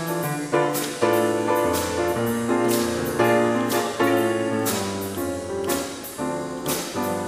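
Piano-led instrumental music, with chords struck over changing low notes.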